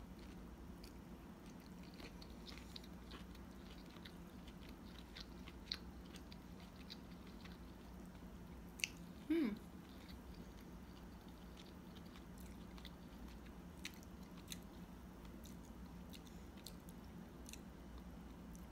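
Faint chewing of a mouthful of shrimp and zucchini noodles, with scattered light clicks, over a steady low hum. A short falling 'mm' from the eater comes about halfway through.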